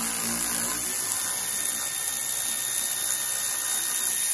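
Milwaukee cordless power tool running steadily in reverse, spinning out 18 mm brake caliper bolts.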